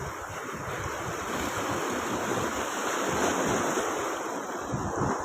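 Sea surf washing in, swelling louder around the middle, with wind buffeting the microphone.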